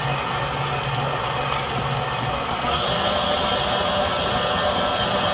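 KitchenAid stand mixer running on low speed, its motor giving a steady hum as the flat beater churns thick pound-cake batter, flour being mixed into creamed butter and sugar. The tone shifts slightly about halfway through, when a higher hiss joins the hum.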